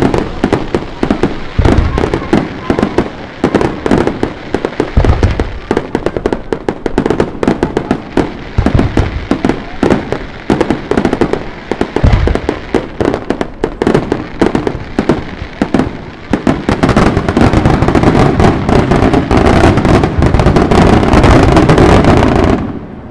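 Professional fireworks display: rapid crackling and popping bangs, with a few deep shell bursts among them, building into a dense continuous barrage for the last several seconds before dropping off just before the end.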